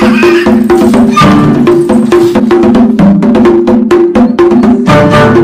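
Background music with a fast, clicky percussion beat over a repeating low melody.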